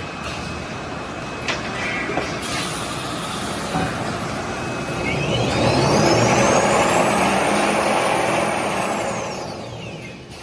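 Automatic toilet paper rewinder running, a steady mechanical noise that swells in the middle. In the second half a high whine rises and then falls over about five seconds, and there are a few short clicks early on.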